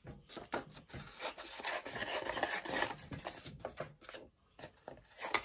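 Scissors cutting a sheet of paper, with the paper rustling and rasping in the hands in short irregular snips. It goes quieter briefly about four seconds in.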